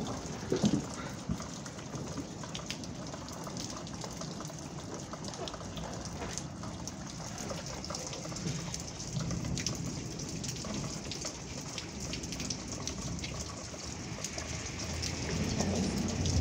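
Steady rain falling, with many single drops ticking on nearby surfaces and one sharper hit about half a second in. A low rumble swells near the end.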